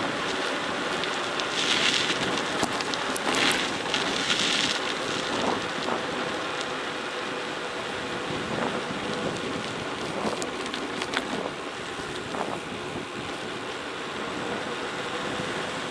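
Tyres rolling fast downhill over a gravel forest road, a steady crunching hiss with wind on the microphone and scattered clicks of stones. It grows rougher and louder for a moment about two and four seconds in.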